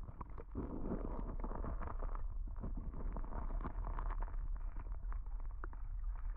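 River current heard underwater through a submerged camera's housing: a muffled, steady low rumble with many small ticks and clicks.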